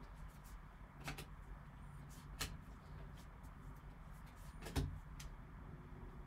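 2020-21 Skybox Metal Universe hockey cards being handled by gloved hands: a few soft clicks of card stock sliding and tapping, the loudest a heavier tap about five seconds in, over a low steady hum.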